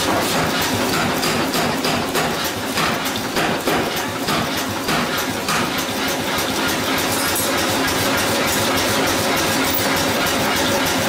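Hot-forging of a red-hot steel hammer-head blank: heavy shop machinery runs steadily with rapid, irregular metal knocks, densest in the first half.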